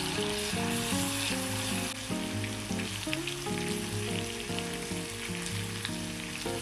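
Hot olive oil sizzling and crackling steadily, under soft background music.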